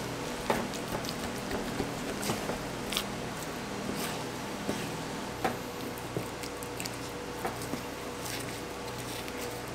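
Kitchen knife slicing through raw beef on a plastic cutting board: soft wet squishing of the meat with irregular light clicks as the blade and hands meet the board, over a steady background hum.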